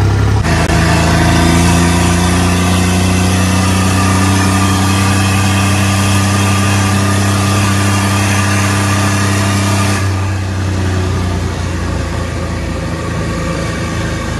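New Holland 3630 tractor's diesel engine running while driving on the road, its pitch climbing slowly as it gathers speed. About two-thirds of the way in the sound turns duller and a little quieter.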